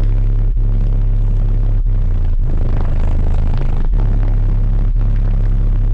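Car subwoofer system playing a bass track at high volume through four 15-inch Sundown Zv5 subwoofers on Sundown SALT 8 amplifiers. Very loud, deep, sustained bass notes with a rough buzzing haze over them. The bass cuts out for a split second several times along the beat.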